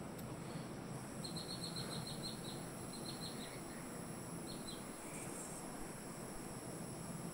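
A small animal's short, high chirps: a quick run of about a dozen a little over a second in, then two shorter runs, over a faint steady hiss.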